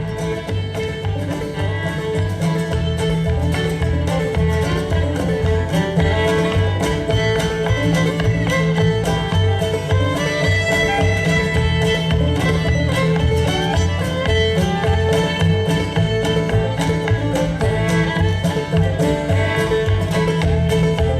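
Bluegrass string-band music with fiddle and banjo playing an instrumental stretch over a steady, even bass beat.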